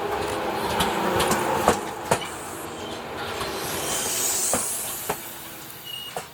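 Train rolling slowly over rail joints and points, its wheels giving irregular sharp clacks over a steady rumble, with a faint squeal of the wheels in the first couple of seconds.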